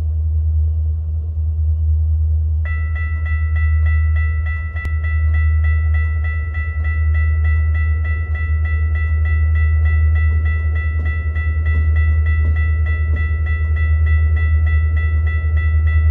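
Railroad grade-crossing bell starting about three seconds in and ringing in rapid, even strokes, over a loud steady low rumble. The crossing is activated, signalling an approaching train.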